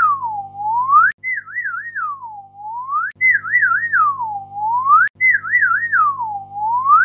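Looping whistle-like background music: a single pure tone swoops down and back up, then warbles three times, repeating about every two seconds over a low steady drone, with a short click between some repeats.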